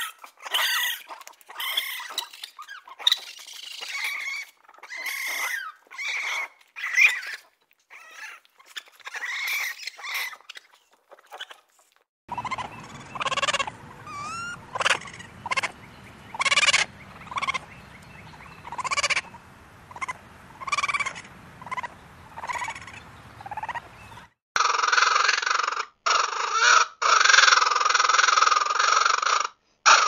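Raccoons calling to each other in short, high squeaky chirps and squeals. About twelve seconds in, another recording of the same kind of calls begins over a low steady background noise. From about twenty-four seconds in, baby raccoons cry in longer, continuous calls.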